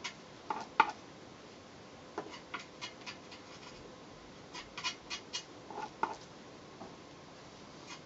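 Glue being spread with a small stick onto a taped composite pole section: scattered light clicks and scrapes, with a few short squeaks under a second in and again near six seconds.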